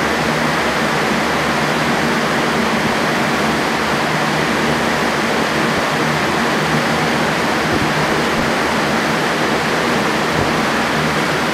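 Several electric fans running at high speed, a loud steady rush of air with a faint motor hum underneath.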